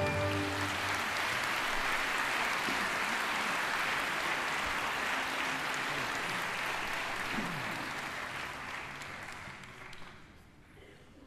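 Theatre audience applauding after the orchestra's closing chord cuts off in the first half-second; the clapping holds steady, then dies away over the last few seconds.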